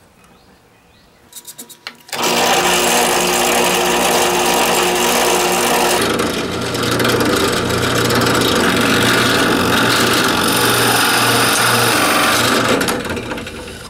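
Bench drill press started about two seconds in, its motor running with a steady hum. A few seconds later the spinning spade bit cuts into the wooden goblet piece, adding a rougher cutting noise, and the machine runs down near the end.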